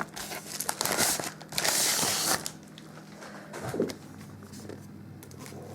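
A parcel being opened: packaging rustling and tearing with clicks and crackles, loudest in a rush about two seconds in, then quieter handling.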